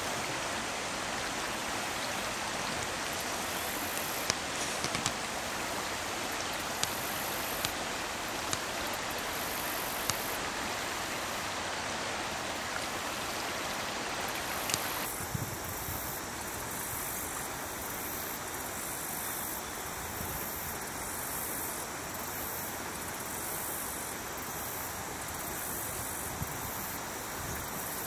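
Steady rushing of water flowing in a shallow stream, with a few faint ticks in the first half. About halfway through, the rush changes abruptly to a slightly duller tone.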